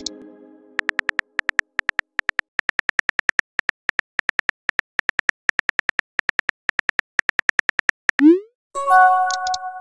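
Synthetic phone-keyboard typing clicks from a texting-story app, several taps a second, with the fading tail of a message chime in the first second. Near the end the typing stops for a short rising swoosh as the message is sent, then a chime of a few held tones as a reply arrives.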